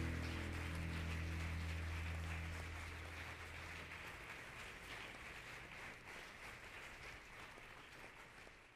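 Applause from a congregation over a held low keyboard chord. The chord dies away about four seconds in, and the clapping fades out gradually near the end.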